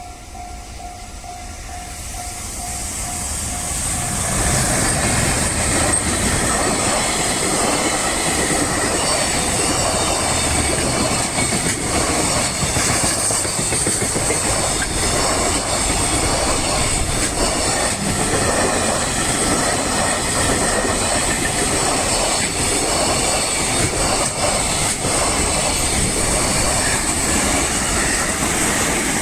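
Level-crossing warning bell ringing, then a long freight train hauled by an EF210 electric locomotive arrives about four seconds in and runs past steadily, its wheels clicking over the rail joints.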